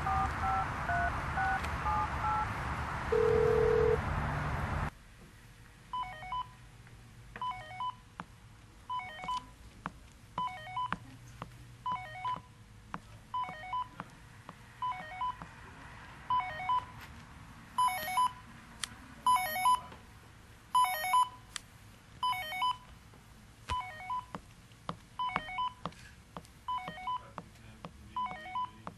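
Touch-tone telephone keys pressed, a quick run of about ten beeps, then a short steady low tone. Then an electronic telephone ringer chirping in short double beeps about every second and a half.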